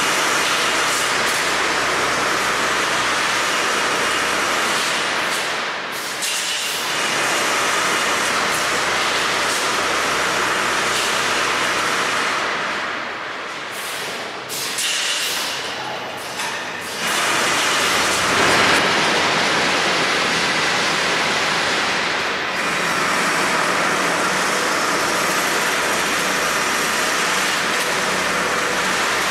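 Eurobend Syntheton 20x4 automatic rebar processing machine running: a loud, steady mechanical noise. It eases off briefly about six seconds in and again around twelve to sixteen seconds, then picks up again.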